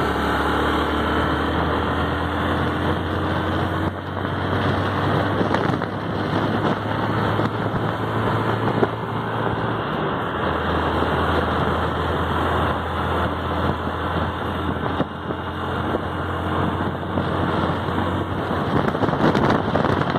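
Motor vehicle driving: a steady low engine drone under continuous road and wind noise.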